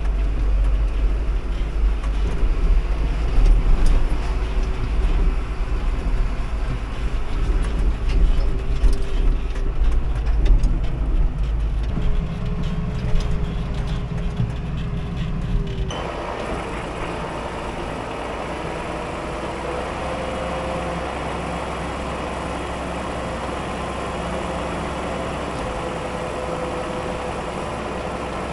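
John Deere tractor engine running under load, heard from inside the cab as it pulls a feed mixer wagon: a heavy low rumble with knocks and rattles. About sixteen seconds in it changes abruptly to a steadier, higher hum of the mixer wagon running as feed is unloaded into the bunk.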